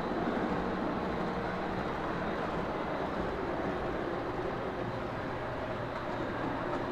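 Model train running on the layout track: a steady rumble of its motor and wheels.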